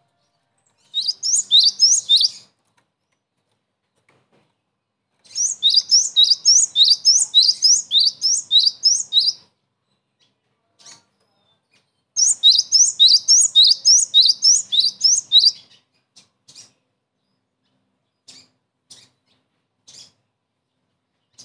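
Cinereous tit singing: three bouts of rapid, repeated high sweeping notes, the longest about four seconds, followed by a few single short call notes near the end.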